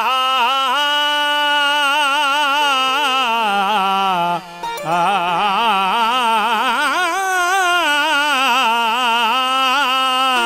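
A male folk singer holding two long, sustained vocal notes with wide vibrato, broken by a short breath about four seconds in.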